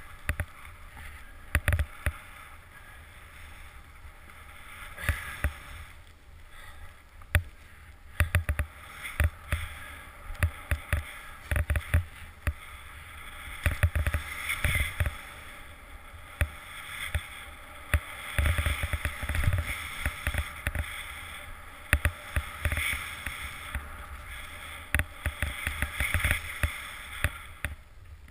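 A snowboard sliding and carving over snow: a steady hiss that swells and fades with the turns, broken by frequent sharp knocks and low thumps over the bumpy ride.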